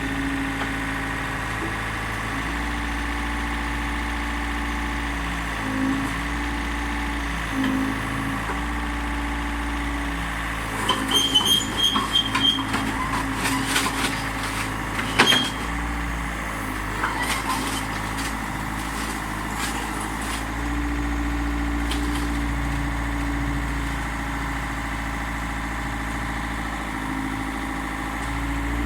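Excavator diesel engine running steadily with slow swells in its hum. From about 11 to 16 seconds in comes a run of metal clanks and short squeals.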